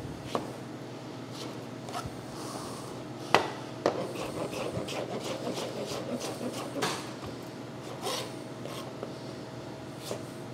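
Chef's knife dicing raw butternut squash on a plastic cutting board: irregular knife taps and scrapes against the board, the loudest a little over three seconds in. A steady hum runs underneath.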